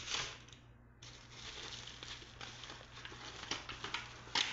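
Plastic cling film and paper wrapping crinkling and rustling as a slab of raw beef is unwrapped by hand, in uneven crackles with a sharper one near the end.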